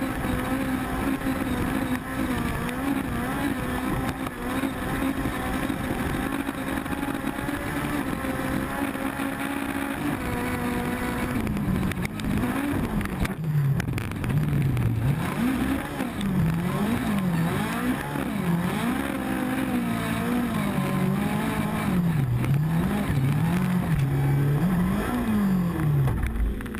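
Air-cooled Volkswagen Beetle flat-four race engine heard from inside the cockpit, held at steady high revs for about ten seconds, then rising and falling in pitch again and again as the car is driven hard through the corners.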